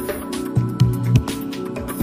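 Electronic music with a steady beat and a bass line.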